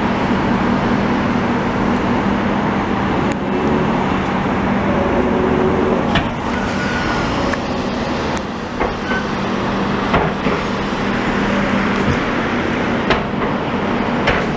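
Heavy diesel dump truck engines running, a steady low drone over a rumble of traffic, with several sharp knocks scattered through it.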